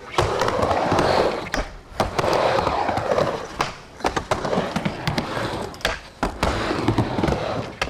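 Skateboard wheels rolling back and forth across a mini ramp, the rumble swelling and fading with each pass, with several sharp clacks and a grind of the trucks on the coping.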